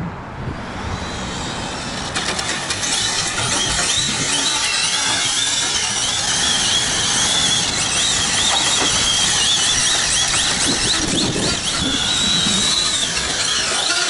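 Arrma Infraction 6S RC car being driven hard on asphalt: a high whine wavers up and down in pitch with the throttle over steady road and wind noise.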